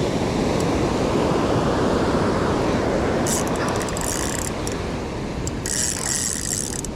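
Surf washing steadily on the shore. Two stretches of fast, high clicking or hissing come in about halfway through and again near the end.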